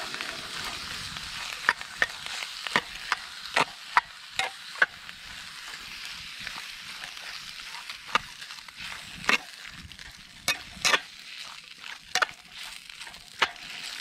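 Spam pot pie filling sizzling in a cast iron Dutch oven as it is stirred, with a spatula scraping and knocking against the pot at irregular moments.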